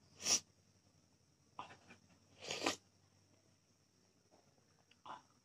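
Close-miked eating sounds: about four short, noisy slurps and mouth sounds as soup is sipped from a small bowl held to the lips.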